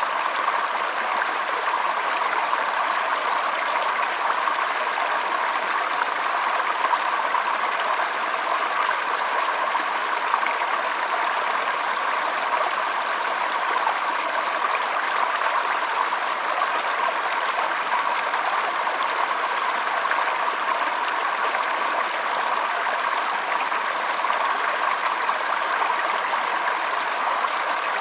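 Water flowing steadily in a stream, an even rushing and babbling that does not change.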